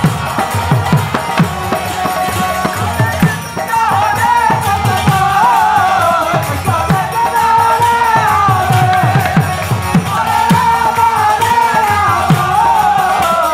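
Kirtan music: a voice sings a chant melody over rapid hand-drum strokes and jingling hand cymbals, with a short dip about three and a half seconds in.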